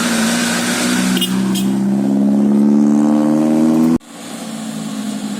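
Bus engine accelerating, its pitch rising steadily, then cut off abruptly about four seconds in, leaving a quieter engine sound.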